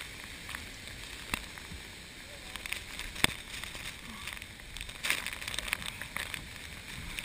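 Rushing flash-flood water and sloshing around hikers wading waist-deep along a canyon wall: a steady rush broken by a few sharp clicks and knocks.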